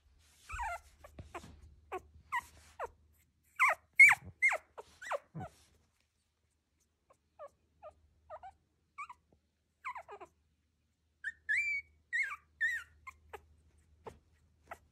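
A very young miniature Schnauzer puppy whimpering in short, high squeaks: a busy run through the first five seconds or so, a few scattered ones after, and another run from about eleven seconds in.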